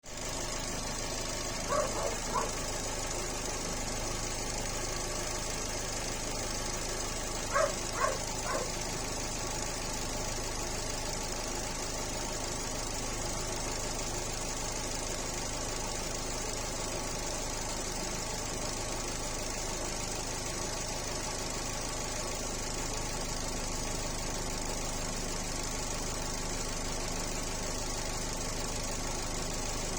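Fiat 1.4 95 hp petrol engine idling steadily, with a running noise that the owner suspects is abnormal. Two brief groups of three short sharp sounds cut in about two seconds and eight seconds in.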